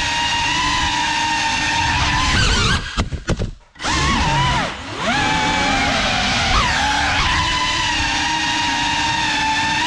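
Cinewhoop FPV quadcopter's (GEPRC Cinelog 35) motors and ducted propellers whining steadily. A little past two seconds in the pitch wavers, then the sound nearly cuts out for about a second as the motors spin down, dips once more, and comes back with sliding pitch before settling into a steady whine again.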